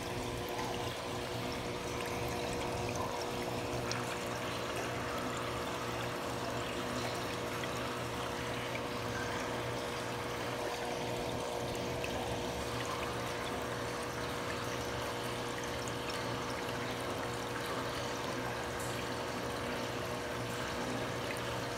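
Water pouring steadily into an aquarium tank from its circulation system, with a steady pump hum underneath.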